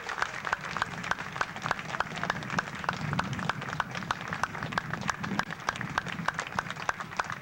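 Audience applauding, with sharp individual hand claps standing out.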